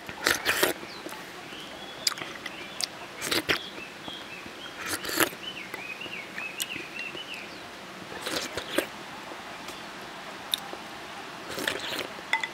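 Slurping and sucking in spoonfuls of cold, slippery sweet potato starch jelly in a vinegar and chili dressing, a short noisy slurp every few seconds. A bird warbles faintly in the background through the middle.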